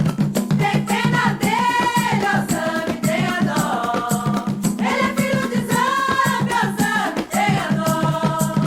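Several voices singing together over a steady percussion beat with shakers.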